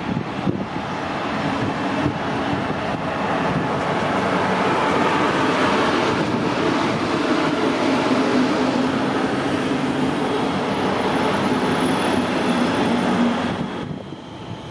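A train passing on the rails: a loud, steady rumbling noise that builds over the first few seconds and drops away sharply near the end as the train clears.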